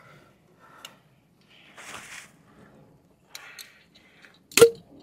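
Scattered faint clicks and scuffs of tools being handled, then one sharp, loud metallic strike about four and a half seconds in that rings briefly.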